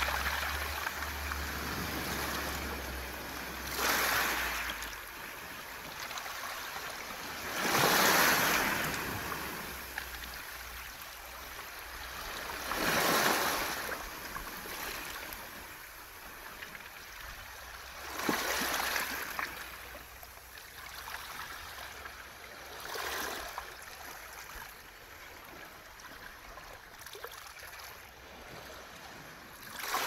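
Sea waves washing up a beach of round pebbles (mongdol), the water and rolling stones making a hissing rush. Each surge swells and fades, one about every four to five seconds.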